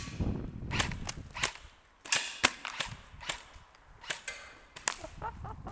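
Airsoft guns firing single shots: about a dozen sharp cracks at irregular intervals, some landing close together.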